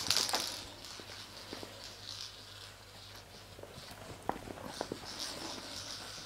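A small dog's paws pattering and scuffing on a smooth hard floor as it scrambles about playing, with scattered light clicks and soft swishes. The loudest is a brief swish at the very start.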